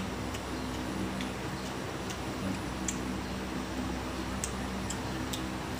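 Eating by hand: scattered soft clicks and squishes from chewing and from fingers mixing rice on a plate, over a steady low hum.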